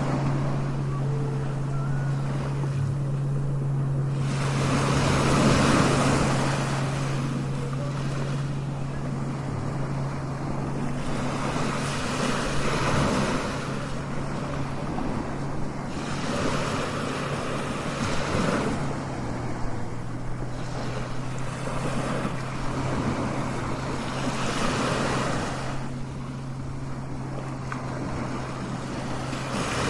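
Strong ocean waves breaking and washing in, swelling and falling back every few seconds, over a steady low hum.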